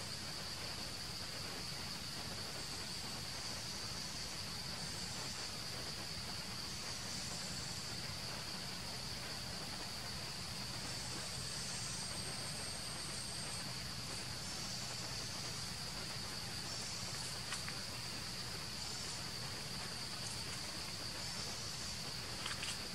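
Insects calling in one continuous high-pitched drone, with a higher, softer layer that comes and goes. A few faint clicks come near the end.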